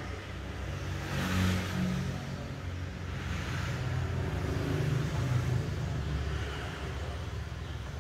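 Low, steady motor vehicle engine rumble with a slightly wavering pitch.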